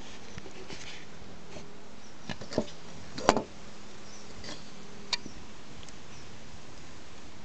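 Hard plastic clicks and knocks from a dismantled Canon MP610 printhead carrier being handled and turned over. There are a few separate knocks, the loudest about three seconds in, over a low steady hum.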